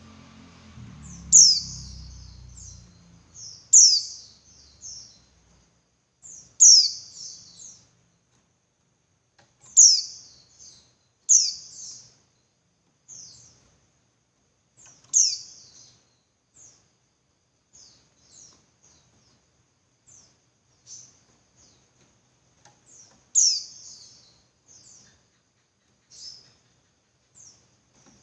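Female white-eye (pleci) calling: short, high chirps that sweep downward, given singly and in quick clusters every few seconds, some loud and many faint. This is the female's call, used to rouse male white-eyes into song.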